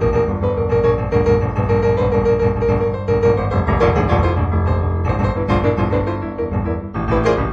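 Background solo piano music, improvised, with sustained chords and melody notes and a short break near the end before a new phrase begins.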